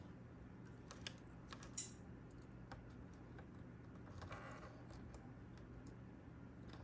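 Faint scattered clicks and taps with a brief rub about four seconds in: fingers handling and pressing small vinyl wrap pieces onto a plastic charger case, over a low steady hum.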